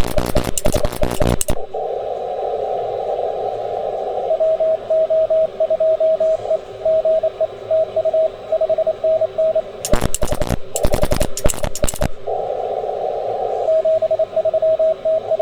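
Morse code from an HF transceiver on 20 m: a single beeping tone keyed in dots and dashes over the hiss of a narrow CW filter. Near the start and again about ten seconds in, there are bursts of harsh crackling across the whole range, the radio-frequency interference that the operator blames for his CW sounding bad.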